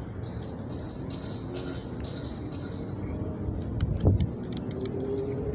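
Small clicks and jangles from handling, of the kind bead necklaces and clothing make as she works at her skirt, over a steady low outdoor rumble. The clicks come in a quick run in the second half, with one thump about four seconds in.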